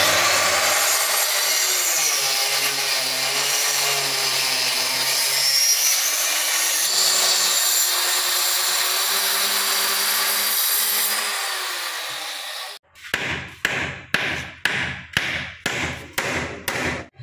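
Handheld electric cutter with a small circular blade, of the marble-cutter type, cutting through a weathered wooden beam, its motor whine wavering under the load. It stops about 13 seconds in, and about nine sharp knocks follow at roughly two a second: hammer blows on the wood pieces.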